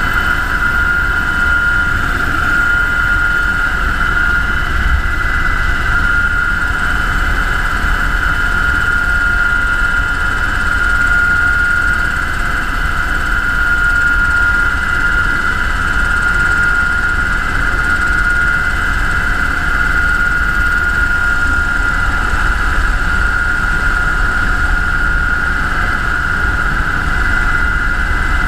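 UH-60 Black Hawk helicopter in flight: its twin turboshaft engines and rotor drive running steadily, a constant high whine over a low rumble.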